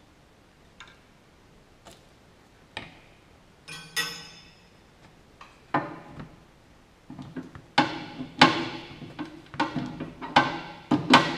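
Background music with plucked or struck percussive notes over held low tones, coming in about four seconds in after a few faint clicks.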